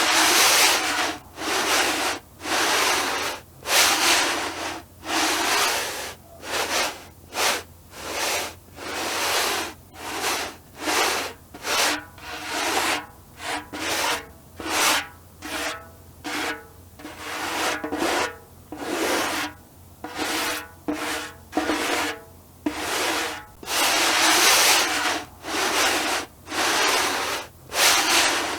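Djembe drum head being rubbed in repeated strokes, about one or two a second, a dry scraping hiss with no drum tone. The strokes come quicker and shorter in the middle and longer toward the end.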